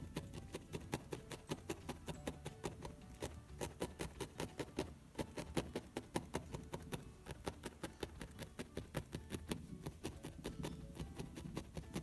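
Felting needle rapidly stabbing through uncombed brown wool into a felting mat: a fast, even run of faint soft clicks, about four or five a second.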